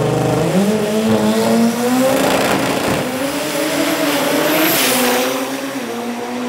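Turbocharged Toyota 3RZ four-cylinder engine in a Celica drag car pulling hard on a run. Its note climbs, dips and climbs again as it accelerates away.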